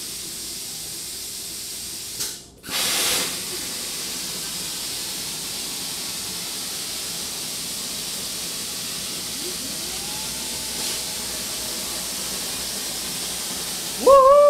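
Hypertherm plasma cutter on a homemade CNC table, its arc hissing steadily as it cuts sheet steel. About two seconds in, the hiss cuts out briefly and comes back with a short louder burst. Near the end, the table's drive motors give a loud whine that rises and then falls in pitch as the gantry moves.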